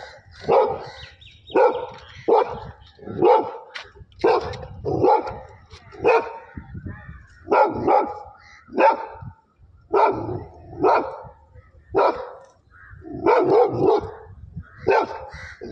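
Labrador cross-breed dog barking over and over at water buffalo, about one loud bark a second.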